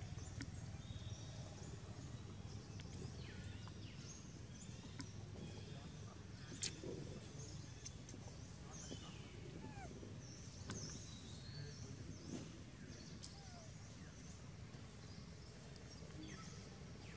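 Quiet outdoor ambience: a steady low rumble with scattered faint bird chirps and a few sharp clicks, the loudest click about six and a half seconds in.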